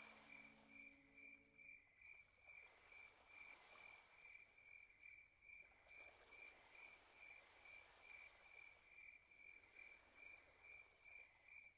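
Faint cricket chirping: a steady high pulsed trill, two to three chirps a second. A low held musical drone fades out about two seconds in.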